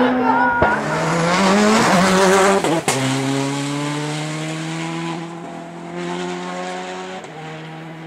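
Rally car accelerating hard away through its gears. The engine note climbs and drops at each upshift, about half a second in, near three seconds with a sharp crack, and again near the end, and it fades as the car pulls away.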